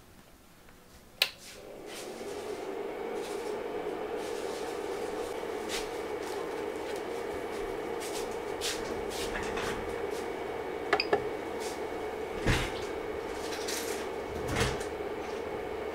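Creality CR-10S 3D printer switched on with a sharp click about a second in, after which its cooling fans run with a steady hum and a thin high tone. A few short clicks and knocks come later as its control knob is turned and pressed.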